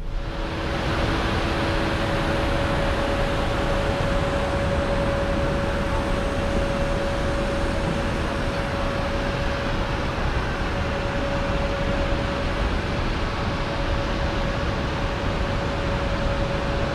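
Steady, loud machine rush with a constant whine, of the kind made by ground equipment or the auxiliary power unit at a parked airliner. It holds level throughout.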